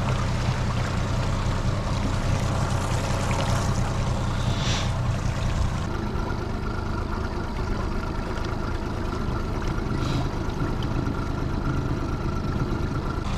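Honda 30 hp four-stroke tiller outboard running steadily at low trolling speed, with water washing along the hull. From about six seconds in a faint steady high whine joins the engine sound.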